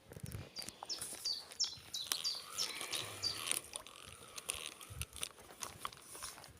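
A small bird calling: a quick series of short, high, falling chirps, about eight in the first three seconds or so, over faint outdoor background noise.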